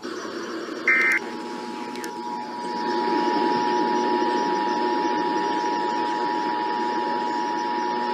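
Emergency Alert System broadcast alert: a short warbling burst of SAME digital data tones about a second in, then the steady two-tone EAS attention signal (853 and 960 Hz together) holding on. Underneath runs a noisy hiss that grows louder about three seconds in.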